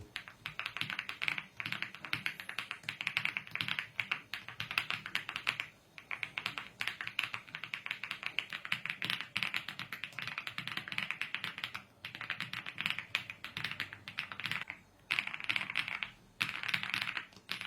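Fast, continuous typing on a mechanical keyboard fitted with Yushu BM-11 short-travel tactile switches, a rapid run of key clacks broken by a few short pauses.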